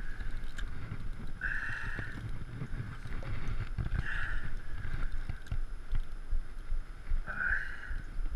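Wind rumbling on the microphone over water lapping at the bank, under a steady high whine that swells briefly three times.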